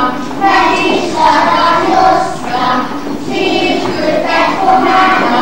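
A group of young kindergarten children singing a song together in short phrases.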